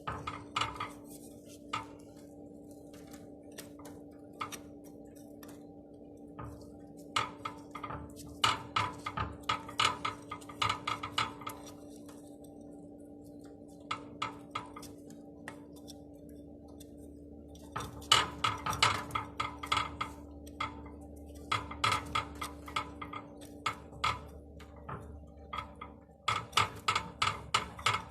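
Metal tools clinking and tapping on engine parts, in bursts of quick clicks, over a steady low hum.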